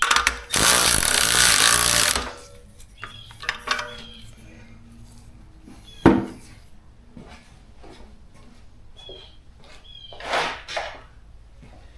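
A power tool runs in a loud burst of about two seconds. A sharp click follows about six seconds in, and a shorter noisy burst near the end.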